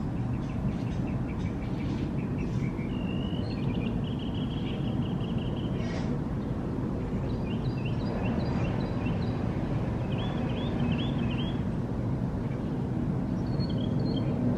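Outdoor ambience: a steady low rumble with songbirds calling over it. There is a trill and a held high note in the first half, then runs of short, quickly repeated chirps. A single sharp click comes about six seconds in.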